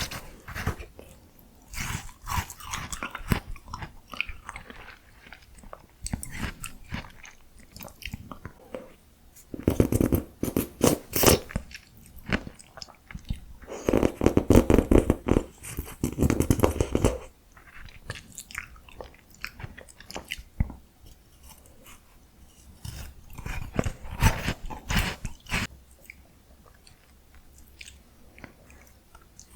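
Close-miked chewing and biting of miniature ice cream, wet clicks and crackles, with two louder stretches of crunching, one about ten seconds in and a longer one a few seconds later.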